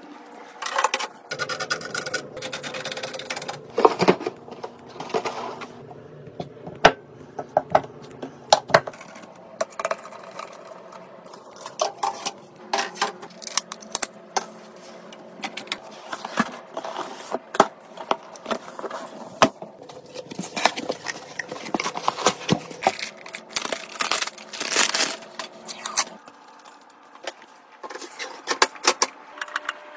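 Computer parts being handled and fitted during a PC build: irregular clicks, taps and knocks of metal and plastic components, with stretches of scraping and rustling.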